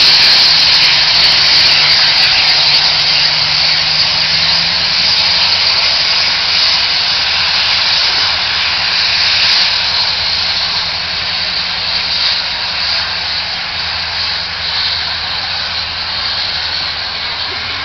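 Steam locomotive working, heard as a steady hissing roar with no distinct chuffs, slowly fading.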